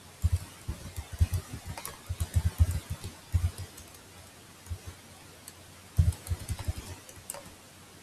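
Computer keyboard typing: runs of quick, dull keystrokes, a lull of about two seconds in the middle, then another short run of keys about six seconds in.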